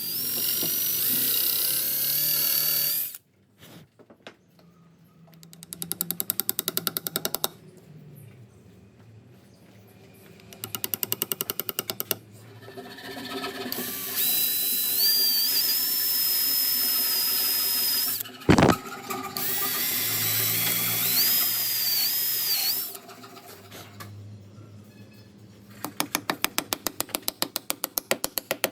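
Power drill running in several bursts of a few seconds each, its high whine shifting in pitch. Between the bursts come stretches of rapid, evenly spaced clicking, and there is one sharp knock about two-thirds of the way through.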